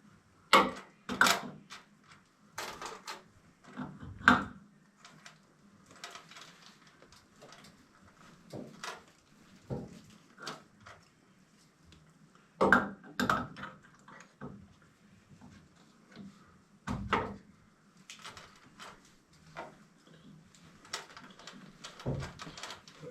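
A run of irregular knocks, clicks and clunks, as of things being handled and set down, loudest about a second in and again at about 4, 13 and 17 seconds.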